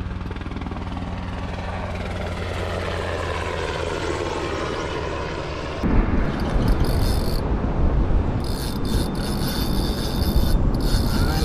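A motor's steady low drone. About six seconds in, it gives way to a louder, rough, uneven rumbling noise.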